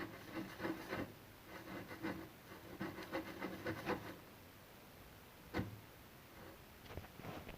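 Faint rubbing and scratching strokes for about four seconds, then a few light knocks.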